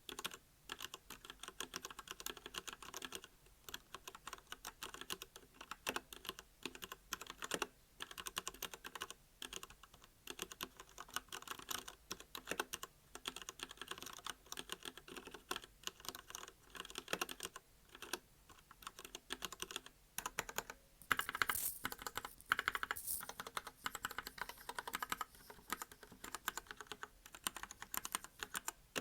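Typing on a Royal Kludge RK68 mechanical keyboard with linear red switches: a fast, irregular run of key clacks with brief pauses. The strokes are louder for a couple of seconds about two-thirds of the way in.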